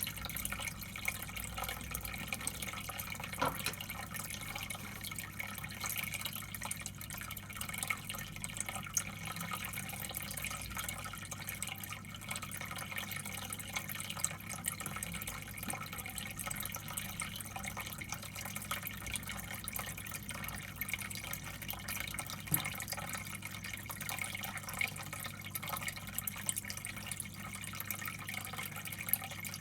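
Water trickling and dripping steadily in a turtle tank, with small splashes and ticks over a constant low hum.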